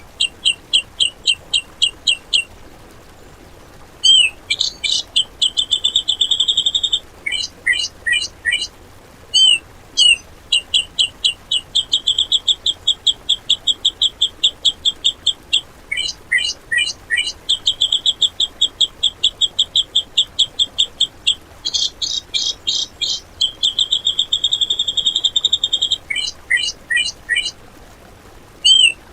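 Cucak jenggot (grey-cheeked bulbul) song: rapid-fire 'tembakan' phrases of quick, sharp, high notes several a second, alternating with long buzzy trills and a short upslurred note. The phrases come with brief pauses and repeat the same pattern, as in a looped masteran recording.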